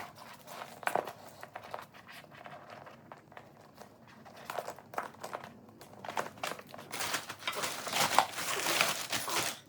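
Plastic packaging crinkling and rustling as paddleboard accessories are unwrapped and handled: scattered crackles at first, becoming denser and louder in the last few seconds.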